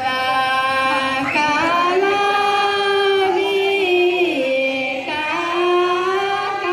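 A group of women singing in unison into hand-held microphones: long held notes that glide slowly up and down between pitches.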